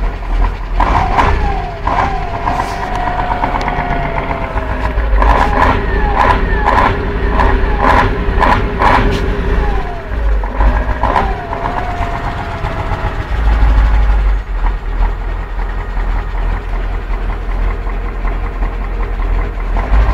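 An engine running with a steady low rumble. A whine falls in pitch twice. A run of sharp clicks comes in the middle.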